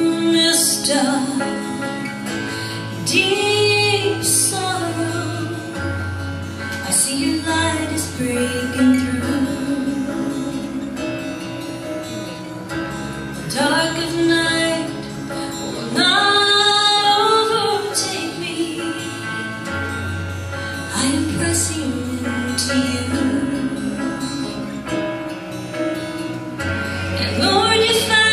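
A woman singing a slow worship song solo, in sung phrases with long held notes, over recorded instrumental accompaniment with sustained chords and a bass line.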